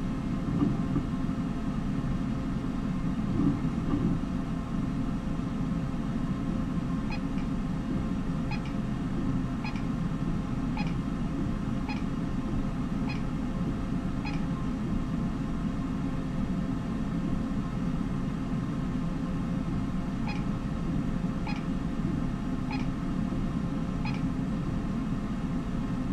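Visual field test machine (perimeter) humming steadily with a low rumble, while short, high electronic chirps sound about every second and a quarter in two runs: seven or so about a third of the way in, then four more near the end.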